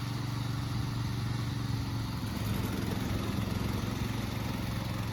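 Petrol engine of a remote-control lawn mower running steadily, with a slight shift in its tone a couple of seconds in.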